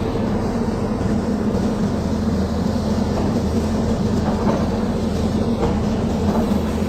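Caterpillar crawler bulldozer's diesel engine running steadily under load, a continuous low drone.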